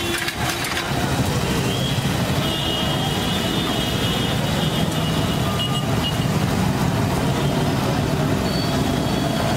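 Steady roadside street noise: engines running and traffic rumbling. A few sharp clicks sound right at the start.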